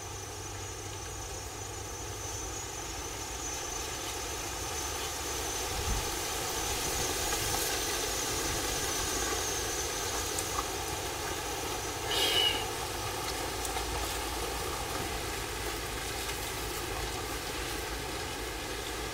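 Steady droning buzz of ground-nesting wasps flying around their nest in numbers, briefly louder about twelve seconds in.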